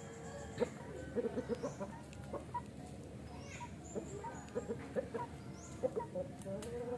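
Chickens clucking: short quick runs of low clucks from a Bangkok gamecock and hens as the rooster courts a hen, with a few separate single clucks between the runs.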